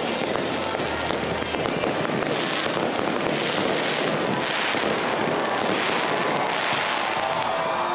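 Fireworks display: aerial shells bursting in quick succession with continuous crackling and many small pops. The crackling swells about once a second through the middle.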